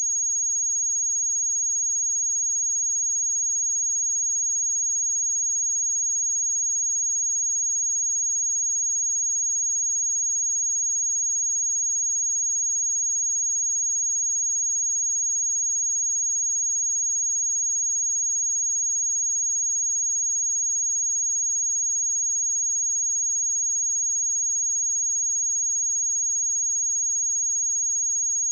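A pure 6605 Hz sine-wave test tone, one steady high-pitched whistle held at constant level throughout.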